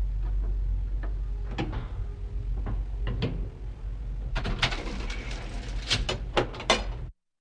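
Elevator running with a steady low hum and scattered clicks and knocks. About four and a half seconds in comes a clatter of loud clunks and rattles, then the sound cuts off suddenly.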